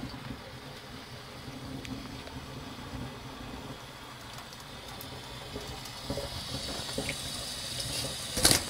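Thin stream of tap water running into a stainless steel kitchen sink while a budgerigar bathes under it, with scattered small splashes. Near the end there is one brief, loud burst of splashing.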